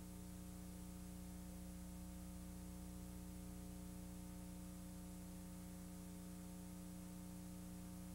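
Faint, steady electrical mains hum, a buzz of several fixed low tones over light hiss.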